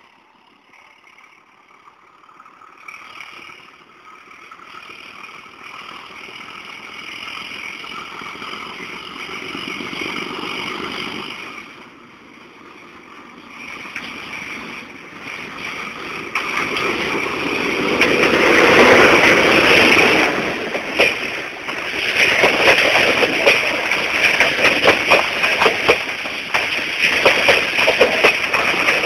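Metre-gauge diesel locomotive approaching under power, its engine growing louder as it nears and passes, then the passenger coaches rolling by close at hand with a quick run of wheel clicks and rattles over the rail joints.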